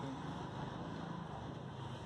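Steady low mechanical hum over an even background noise, without any distinct events.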